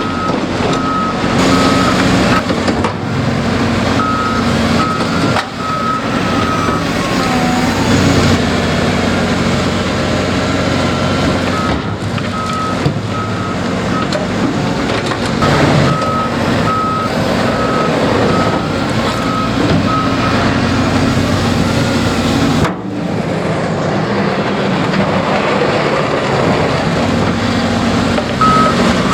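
Heavy diesel construction machinery running, with a reversing alarm beeping in repeated runs that stop and start again several times.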